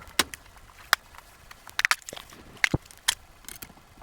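Hand tools clicking and knocking on a car's shifter mechanism while its bolts are being undone: about six short, sharp clicks at irregular intervals.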